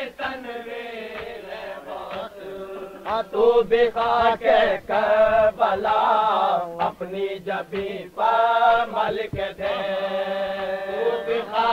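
Male voices chanting an Urdu salam (a Shia devotional recitation) with long, wavering held notes. The recording is an old tape with a dull, muffled top end.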